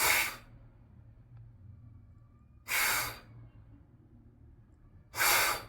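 A voice making three short, unvoiced "fff" hisses, the English F sound made by blowing air between the top teeth and the lower lip. They come about two and a half seconds apart, each lasting about half a second.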